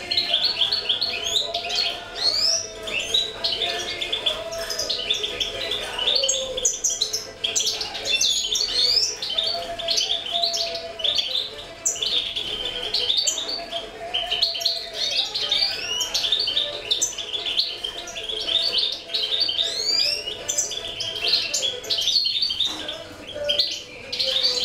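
Many small cage birds chirping and twittering continuously, a dense overlapping chorus of quick high notes and short pitch sweeps, over a fainter, lower wavering tone.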